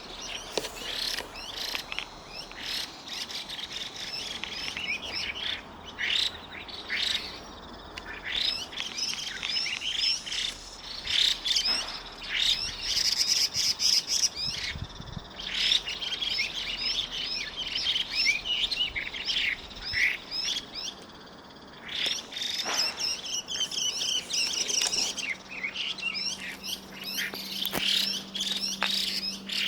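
Two Chinese hwamei singing almost continuously, with rapid, varied strings of whistled notes overlapping one another and short pauses between phrases.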